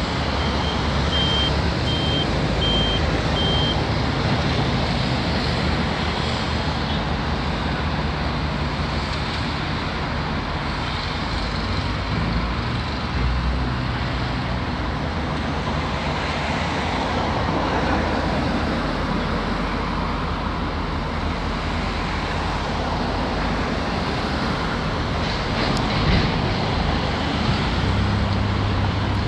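Heavy diesel engines of an excavator and trucks running steadily, their low tones shifting as they work. A reversing alarm beeps at an even pace, about twice a second, for the first few seconds.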